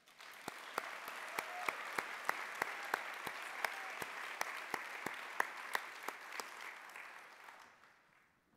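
Audience applauding, with one person's sharp claps close to the microphone standing out about three times a second. The applause dies away near the end.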